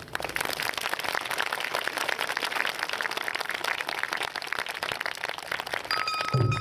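Crowd applauding, a dense steady clatter of clapping. Near the end, the Awa Odori band starts up with a held high flute note and a low drum.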